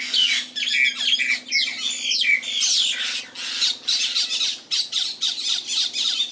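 Several birds squawking harshly and almost without pause as they fight, their quacking calls overlapping one another.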